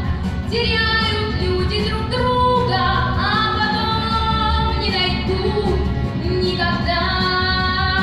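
A young girl singing solo over instrumental accompaniment, with long sustained notes.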